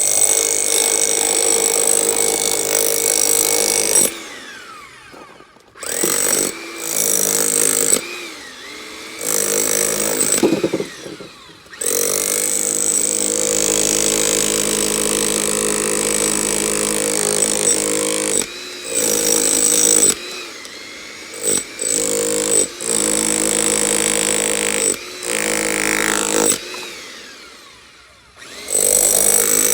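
Rented jackhammer hammering in long runs, stopping and restarting several times as it is used to break off material that a sledgehammer would not shift.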